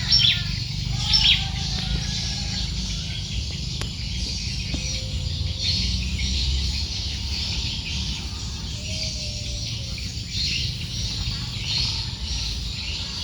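Birds chirping and calling: many short, high chirps, with a few lower whistled notes in between, over a steady low rumble.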